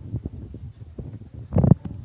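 Handling noise from a hand-held phone being carried and panned: a low rumble with irregular soft thumps that are likely footsteps, and one louder rubbing bump against the microphone about one and a half seconds in.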